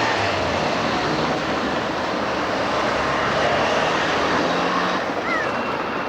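Road traffic: the engines of passing vehicles running in a steady, dense wash of noise.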